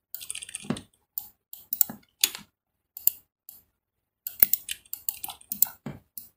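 Irregular clicking of a computer mouse and keyboard, with single clicks and quick runs of clicks.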